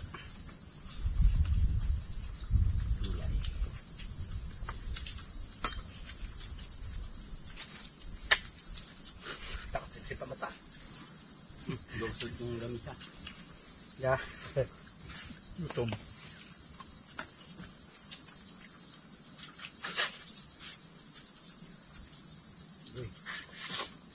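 A dense insect chorus in the trees: a steady, high-pitched, rapidly pulsing trill, with a few faint clicks underneath.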